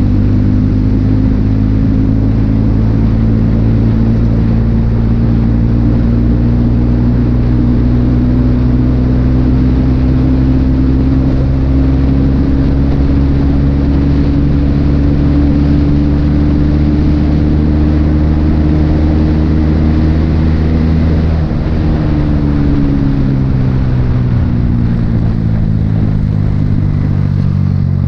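Motorcycle engine running under way at a steady cruise, heard from the rider's seat over a steady rush of road and wind noise. Its pitch creeps slowly up for about twenty seconds, then drops over a couple of seconds and settles lower.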